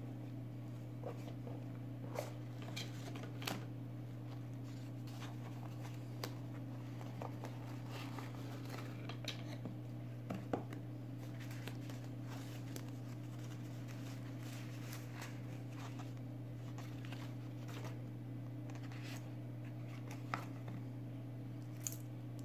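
Handling sounds of unboxing a watch: a cardboard watch box opened and white tissue wrapping rustled off a stainless-steel bracelet watch, heard as scattered light clicks and rustles over a steady low hum.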